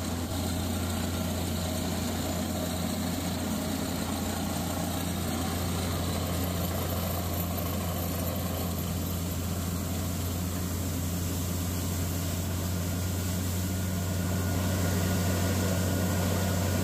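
Truck-mounted water-well drilling rig running steadily, its engine drone under the splash of water and cuttings gushing out of the well from under the rig table. The sound grows a little louder about three-quarters of the way through.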